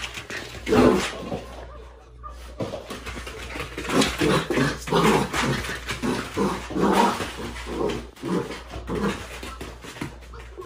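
Cream golden retriever puppy barking and growling in play: one sharp call about a second in, then after a short pause a quick run of short barks and growls, about two to three a second.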